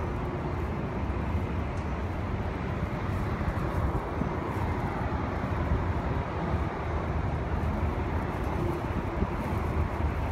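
Wind blowing across the microphone at height, a steady low rush that fluctuates slightly.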